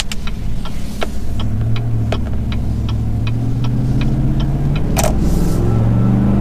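2016 GMC Sierra's 5.3-litre V8 with a Thrush welded muffler and no resonator, heard inside the closed cab, accelerating gently with its pitch slowly rising. A regular ticking at about three clicks a second runs through the first part, and there is one sharp knock about five seconds in.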